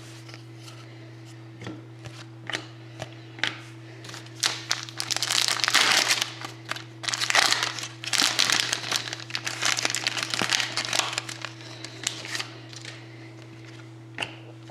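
Wrapper of a trading-card pack crinkling as it is torn open and handled, in dense rustling from about four and a half seconds in to about eleven and a half, with a few light ticks before and after.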